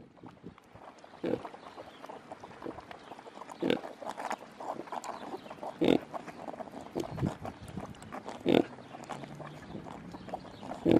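Kunekune sow and her suckling piglets grunting, with short separate grunts every second or two.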